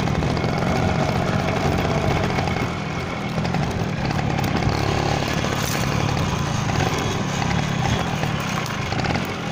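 Suzuki Max 100's two-stroke single-cylinder engine running steadily as the motorcycle is ridden over rough dirt ground.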